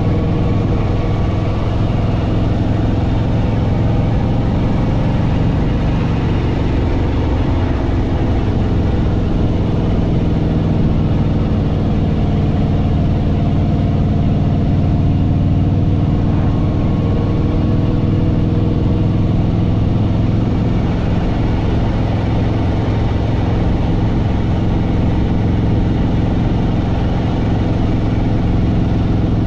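Harley-Davidson Fat Boy Lo's V-twin engine running steadily at cruising speed, with the rush of wind and road noise over it.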